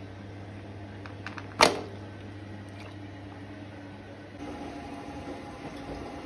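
Steady low mechanical hum with a few light clicks and one sharp knock about a second and a half in; the hum changes to a different, busier tone near the end.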